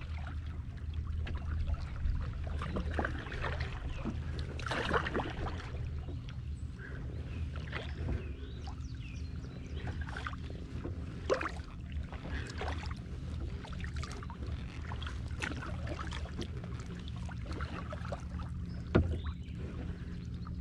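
Water lapping and small splashes around a kayak riding a fast current, over a steady low rumble. One sharper splash near the end is the loudest.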